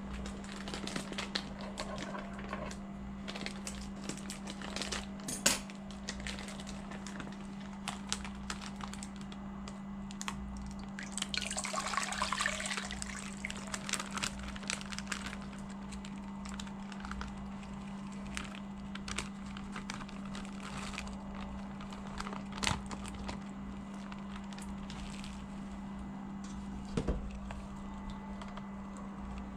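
Plastic fish-shipping bags crinkling and crackling as they are handled over a stainless steel pot, with water poured from a bag into the pot for a few seconds about a third of the way through. A steady low hum runs underneath.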